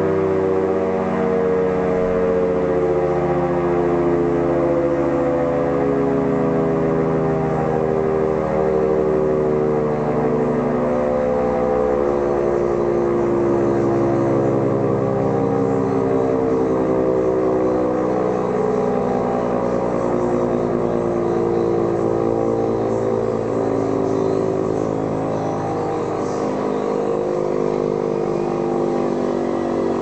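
Carter type 1H two-headed air raid siren running on its Brook Motors three-phase electric motor: a loud, sustained wail of several tones sounding together, the pitch drifting slowly down.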